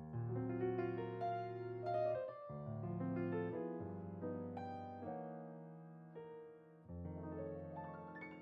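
Background piano music: a calm tune of single notes over sustained bass notes, with a new chord about every second or two.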